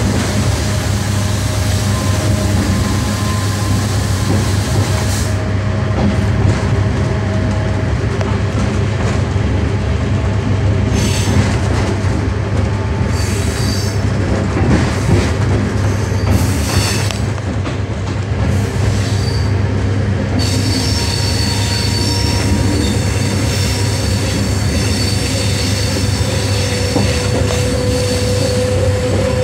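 ICF-built Class S11 diesel-electric multiple unit running, a steady low drone with the wheels squealing on the rails. The squeal comes and goes around the middle and holds steadily through the last third.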